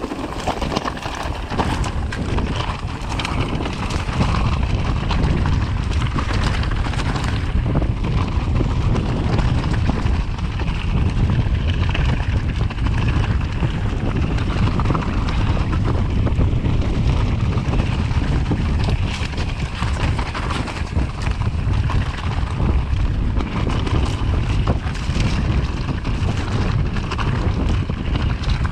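Wind buffeting the microphone of a camera on a moving bike, with continual rattles and knocks from riding over rough ground.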